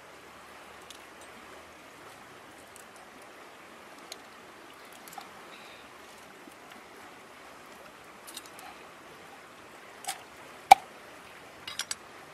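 Raw crab being cleaned by hand on a wet board: scattered small clicks and taps of shell against the board, the loudest a sharp knock about two-thirds of the way through, followed by a quick run of clicks near the end, over a steady hiss.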